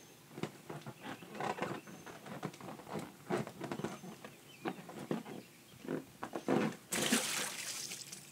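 A toddler clambering up a wet inflatable vinyl slide, with irregular knocks and squeaks, then sliding down into a shallow paddling pool with a splash about seven seconds in.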